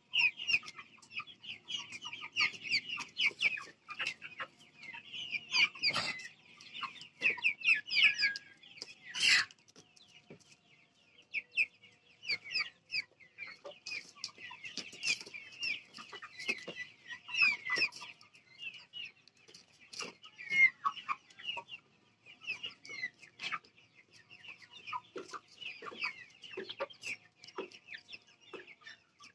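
A flock of Vanaraja chickens calling, a dense, unbroken stream of short high clucks and peeps. A few sharp knocks come through, the strongest about nine seconds in.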